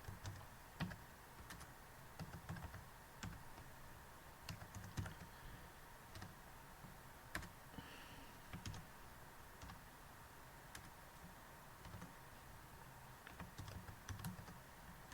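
Typing on a computer keyboard: scattered, irregular key clicks, sometimes in quick runs, with pauses between them, over a faint steady hiss.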